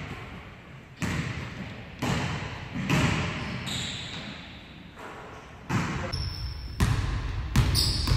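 Basketballs bouncing on a hardwood gym floor: sharp thuds about a second apart at first, coming closer together near the end, each ringing on in the echo of a large gym. A couple of short high squeaks can be heard between them.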